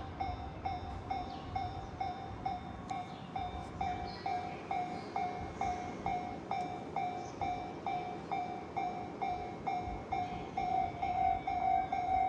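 Japanese railway level-crossing warning bell ringing a steady, evenly repeated clang, about two and a half strikes a second, over a low rumble, getting a little louder near the end.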